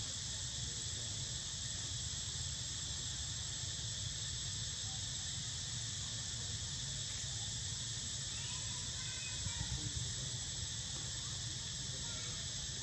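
Steady high-pitched insect chorus over a low rumble, with a few faint short high calls about two-thirds of the way through.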